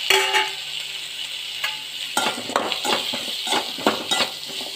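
Pumpkin cubes, tomato, onion and dried red chillies sizzling in oil in a metal pan while being stirred. A ringing metal clank comes at the start, then the utensil scrapes the pan in quick strokes, about three a second, from about two seconds in.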